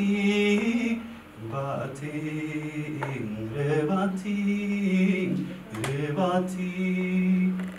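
A man singing a slow, chant-like refrain, repeating a short phrase about every two seconds and holding long steady notes.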